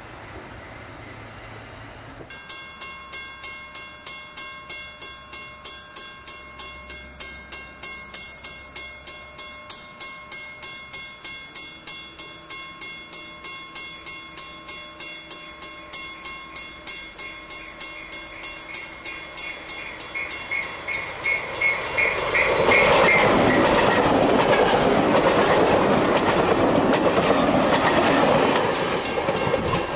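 A bell rings steadily at about two strokes a second as the Danish IC3 Flexliner diesel multiple unit approaches. From about three-quarters of the way in, the trainset passes close by, loud, with its engine and wheel noise, and drops off just before the end.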